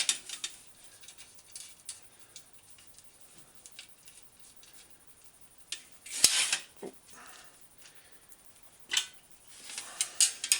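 Metal clinks and short rattles of a bicycle fender and its fender stays being handled and fitted onto the bike frame: a sharp clink about six seconds in, another near nine seconds, and more rattling near the end.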